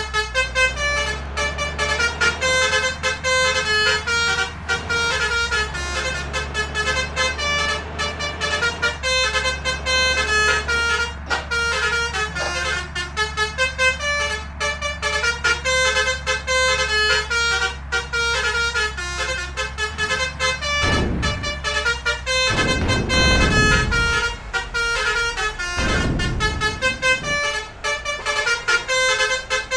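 Basuri 'om telolet' musical air horn playing a fast tune of short, stepping notes without a break, over a steady low engine hum. Deep rumbles come in a few times from about twenty seconds in.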